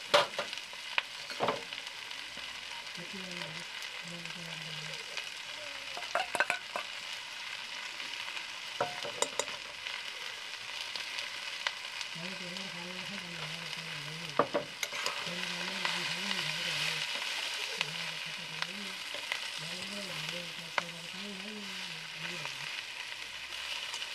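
Onions and chopped banana stem frying in oil in a steel wok, sizzling steadily, with the metal ladle clicking and scraping against the pan now and then as they are stirred.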